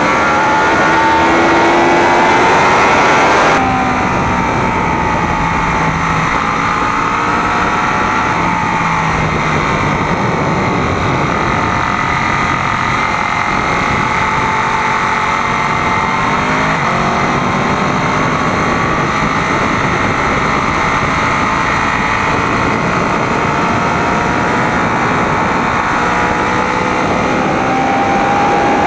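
Sportbike engine heard from an onboard camera on the fairing, with wind rushing over the microphone. The engine climbs in pitch under throttle, cuts off abruptly about three and a half seconds in as the throttle closes, then runs at part throttle through the corners with its pitch rising and falling, and climbs again near the end.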